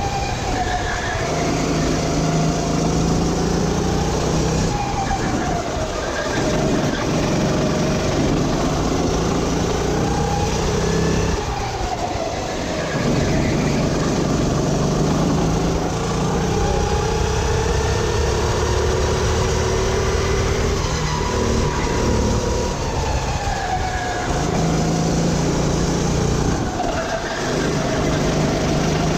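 Four-stroke engine of a Sodi RT8 rental kart at race pace, heard on board: its pitch climbs on the straights and drops sharply several times as the kart brakes for corners, then picks up again on exit.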